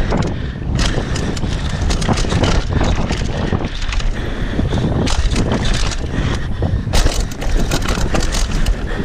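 Downhill mountain bike ridden fast over a dirt trail with roots and jumps, heard from a camera riding along: wind buffeting the microphone under a constant clatter and rattle of the bike and tyres over bumps.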